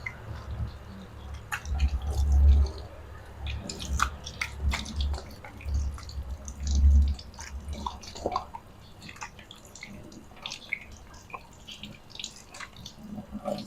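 Hands being washed at a tap: water dripping and splashing in many small irregular splashes. A low rumble swells and fades several times during roughly the first eight seconds.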